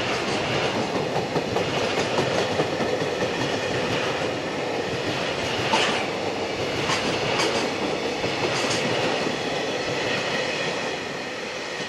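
Container wagons of a freight train rolling past, a steady rumble and clatter of steel wheels on the rails with a few sharp clicks in the middle. The sound begins to fade near the end as the last wagons go by.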